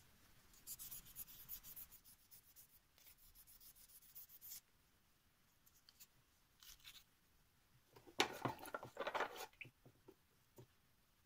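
Epoxy resin ring being hand-sanded with fine 5000-grit sandpaper: faint, quick rubbing strokes with a high hiss for about four seconds. About eight seconds in comes a short burst of louder rustling and light knocks as the sandpaper is handled.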